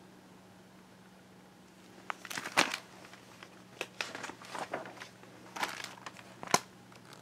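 Paper and cloth rustling and crinkling, with several sharp clicks and taps, as a hardcover picture book is handled and its page turned. It begins about two seconds in and comes in short bursts, with the loudest click near the end.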